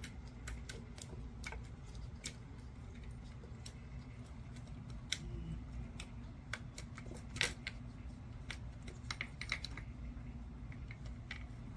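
Kittens batting at a plastic ball-track tower toy: irregular light clicks and taps of paws and plastic balls knocking on the plastic, a few a second at times, the sharpest about seven seconds in.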